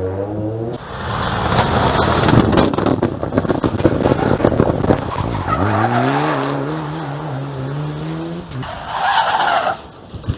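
Rally cars at speed on a tarmac stage: several seconds of loud tyre and road noise with sharp cracks as a car passes, then an engine pulling hard, rising in pitch and held high for a few seconds, and a short burst of noise near the end.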